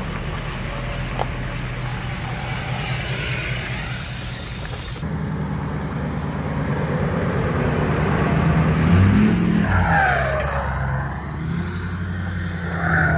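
Ford F-350 Super Duty pickup's engine running under load as it tows an enclosed trailer, a steady deep drone that shifts in pitch and is loudest about nine seconds in.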